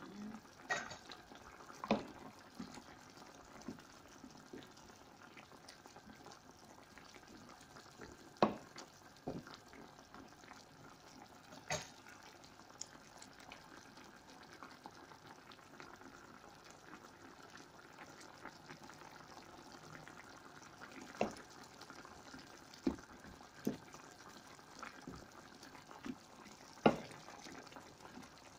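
Chicken curry in coconut milk simmering in a pan with a faint steady bubbling, as it cooks to soften the potatoes and carrots. A few sharp pops or knocks come through it now and then, the loudest near the end.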